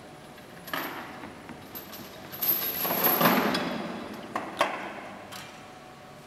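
Chains and the metal-linked fibreglass limbs of a hanging animatronic puppet clanking and rattling: a knock about a second in, a longer rattling clatter in the middle, then a few sharp clicks.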